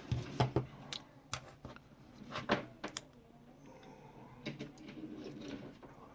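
Scattered light clicks and taps from handling a key fob and soldering tools on a workbench, about a dozen short knocks spread unevenly, over a faint steady hum.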